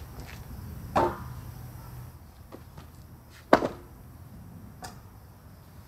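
Long rectangular steel tubes being set down onto wooden blocks and gravel. There is a ringing metal clank about a second in, a louder clank with a short ring about three and a half seconds in, and a smaller knock near the end.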